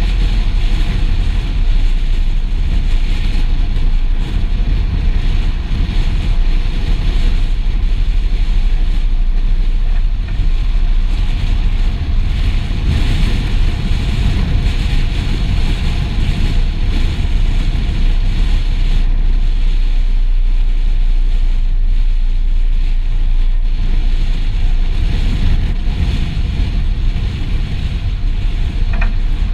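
TLF 16/24 tanker fire engine driving, its engine and road noise forming a steady, heavy rumble with some wind on the microphone. A brief pitched tone sounds near the end.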